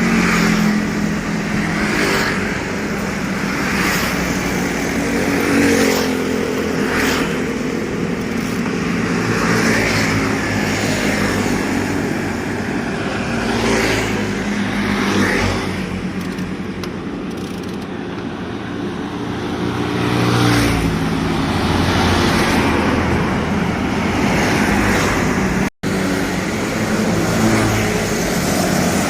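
Motor vehicle engines running and passing on the road, rising and falling in pitch as they go by. The sound cuts out for an instant about three-quarters of the way through.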